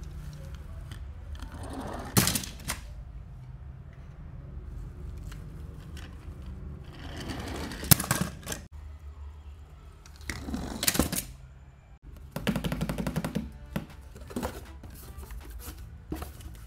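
Die-cast toy cars clattering and knocking against each other and a cardboard box in several separate bursts, the last a quick rattle lasting about a second. Quiet background music plays underneath.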